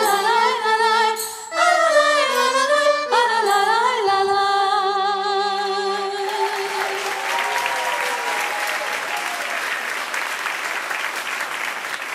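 Female voices singing a Persian song with an instrumental ensemble, ending on a held note with vibrato; about halfway through, the audience breaks into applause that keeps going.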